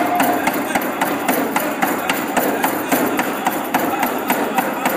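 Powwow drum song for a fancy dance: a steady, even drumbeat with singing voices over it.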